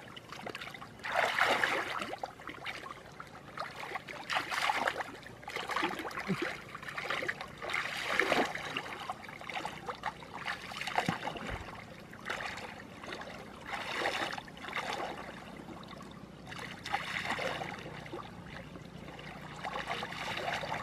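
Shallow muddy water sloshing and splashing as a person wades and gropes through it with his hands, in irregular surges every second or few.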